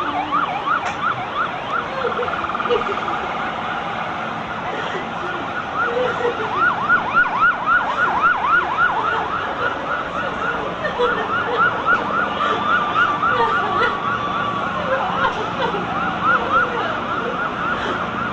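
Several emergency vehicle sirens sounding at once and overlapping, mostly in quick rising-and-falling yelps of three or four a second, with one slower wail drawn out and sliding down about two-thirds of the way through.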